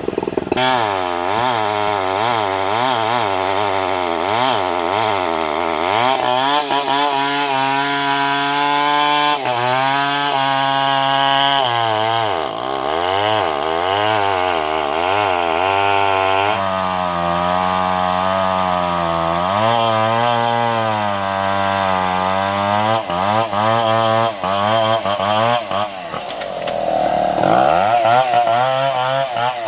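Two-stroke chainsaw cutting timber, its engine pitch repeatedly dropping as the chain bites into the wood and rising again as it frees up.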